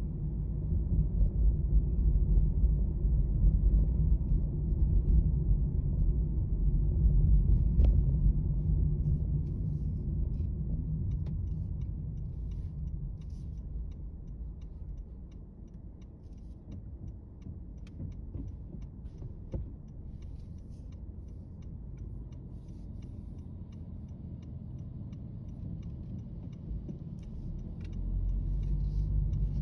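Low outdoor rumble, loud for the first several seconds, easing off about halfway through and swelling again near the end, with faint light clicks and ticks above it.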